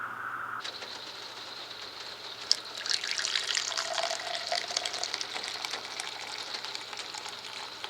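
Water falling and splashing, a steady hiss with many small drips and patters coming in thick from about two and a half seconds in.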